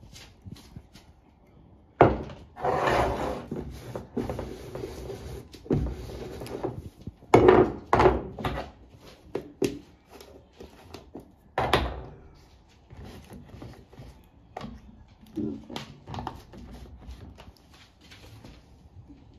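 Jars and food containers being picked up, moved and set down on a countertop: irregular knocks and taps with stretches of rubbing and scraping, loudest about two seconds in, around eight seconds and near twelve seconds.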